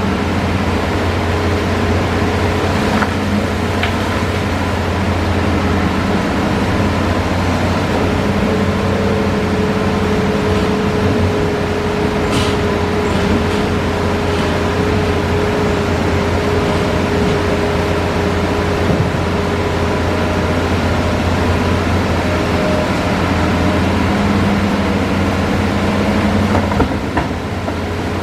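Hitachi Zaxis excavator's diesel engine and hydraulics running steadily under work, a low hum with a steady whine over it, broken by a few brief sharp knocks.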